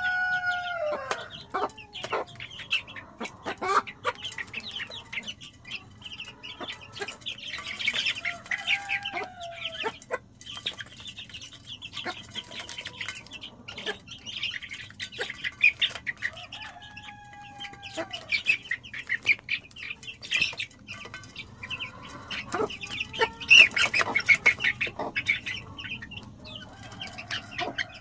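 Domestic chicks peeping continuously in quick, high cheeps. An adult chicken gives a few drawn-out calls that fall in pitch, one fading out about a second in and others later. Scattered sharp taps come through as the chicks peck at food.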